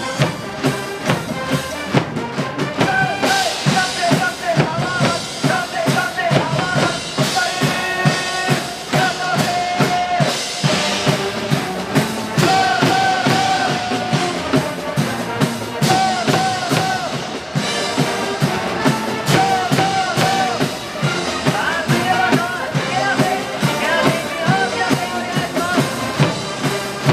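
A baseball cheering section's band playing a cheer song: a pitched melody over a steady, pounding drum beat.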